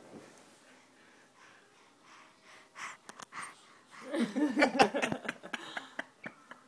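Baby panting and breathing noisily with its tongue out, then a louder wavering vocal sound about four seconds in, lasting a second or so.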